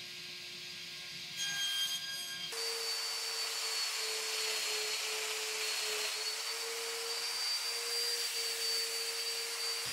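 Domino joiner's motor and its dust extraction running steadily, a rushing whir with a whine that wavers slightly, starting about two and a half seconds in. Before it, a faint hum and a brief louder sound.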